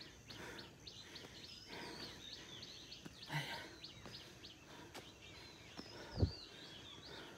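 Small birds chirping repeatedly in short high calls, over footsteps scuffing on dry leaves and stone steps. A single low thump about six seconds in is the loudest sound.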